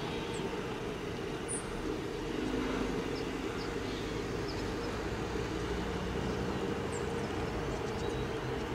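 Steady low drone of a helicopter's engine and rotors heard from inside the aircraft.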